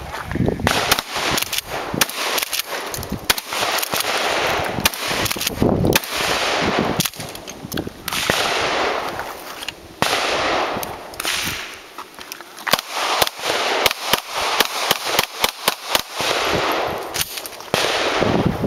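Gunfire: blasts from a 12-gauge Remington 870 pump-action shotgun, then a quicker string of shots from a Beretta pistol. Each shot is followed by a short echo.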